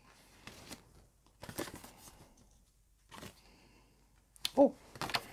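Stiff cardstock journaling cards rustling and sliding against each other as a stack is handled and a card is turned over, in several short bursts.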